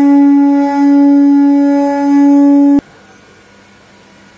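Train horn sounding one long, steady single note that cuts off abruptly with a click just under three seconds in, leaving faint steady background noise.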